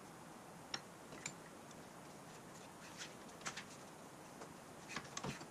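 Scattered light metal clicks and clinks as a steel axle bracket and bushing are set between the jaws of a bench vise and the vise handle is turned, with a cluster of knocks near the end, over faint room hiss.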